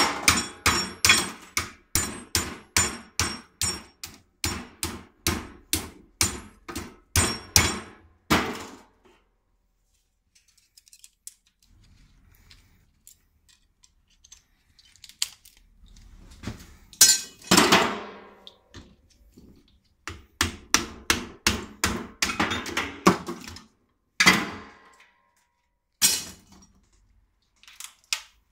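Hammer striking a small transformer clamped in a steel bench vise, rapid ringing metal blows about three a second for the first eight seconds, knocking the core apart to free the copper coil. After a pause there is a metal clatter, another run of blows, and two single loud clanks near the end.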